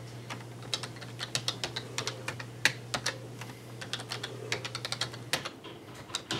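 Keys of a Tandy Color Computer keyboard being typed in an irregular run of clicks, entering a BASIC command line.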